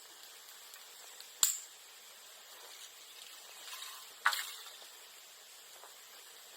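Bonfire of bamboo and bamboo grass burning with a steady faint hiss and two sharp, firecracker-like pops, about a second and a half in and again near four seconds: hollow bamboo stems bursting in the heat.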